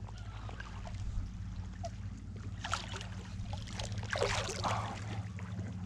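Water splashing, briefly about three seconds in and longer about four seconds in, as a freshly netted pink salmon thrashes at the surface, over a steady low hum.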